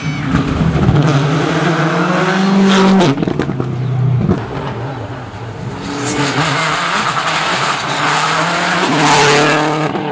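Rally car engines at full throttle as cars go by one after another. The engine note climbs and breaks sharply at each gear change, with a rush of road and tyre noise as a car passes close.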